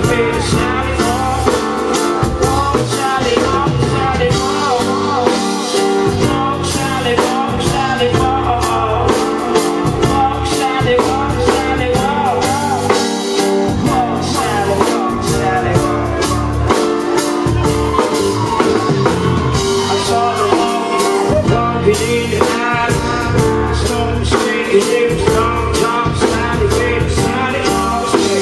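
Live full band playing a song, a male singer singing over drums and organ-style keyboards.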